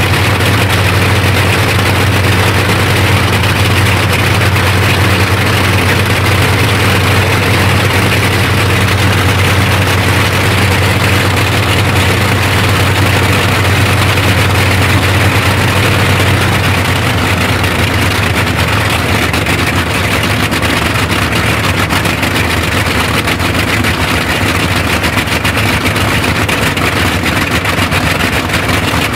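Bristol Hercules 14-cylinder sleeve-valve radial aero engine running loud and steady on a test stand, its propeller turning. It settles a little quieter just past halfway.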